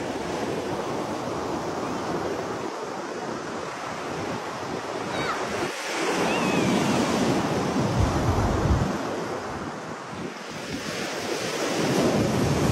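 Wind buffeting the phone's microphone over the steady hiss of surf on a sandy beach. The gusts rumble hardest about eight seconds in and again near the end.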